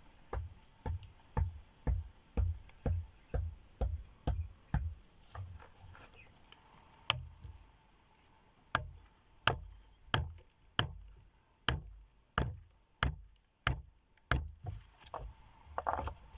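Wood being chopped with repeated strikes, about two a second, with a pause of about two seconds partway through before the chopping resumes.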